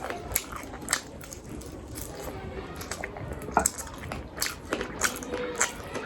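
A person eating rice and chicken leg close to the microphone: chewing with irregular wet mouth clicks and smacks, a few a second.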